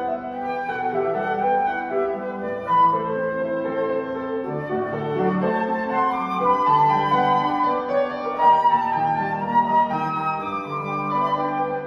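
Flute played by a child, a melody of held notes over piano accompaniment.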